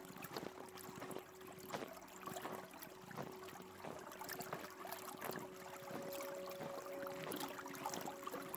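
River water lapping and splashing against shoreline rocks in small irregular splashes, over a faint steady drone of a few held tones.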